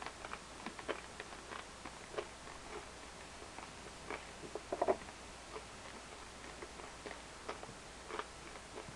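Whole roasted coffee beans being crunched and chewed in the mouth: irregular short crisp cracks and clicks, with a brief louder sound about five seconds in.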